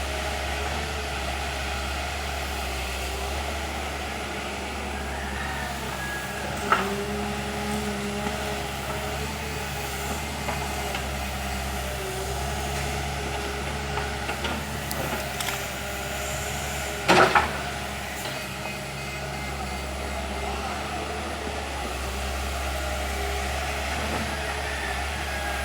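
Backhoe's diesel engine running steadily, with two sharp knocks, one about seven seconds in and a louder one about seventeen seconds in.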